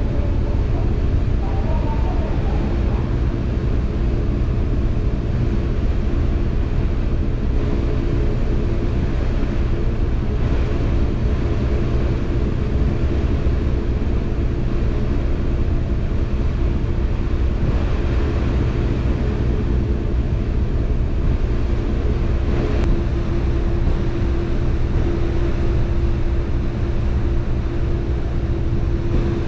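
Tokyo Bay Ferry's engines running with a steady low drone and a constant hum that grows a little louder near the end.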